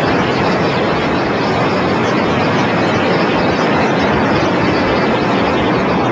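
Steady, loud rumble of 16 concrete high-rise buildings collapsing together after being brought down by explosives.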